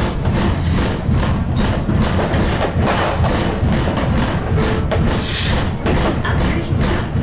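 Music with a steady thumping beat, about three beats a second, over a low rumble.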